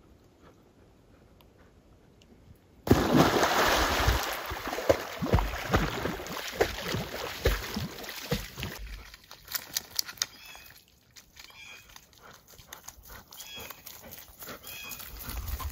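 Lake water splashing and sloshing as a golden retriever swims. It starts suddenly and loudly about three seconds in, then dies down after a few more seconds to faint scattered splashes and drips.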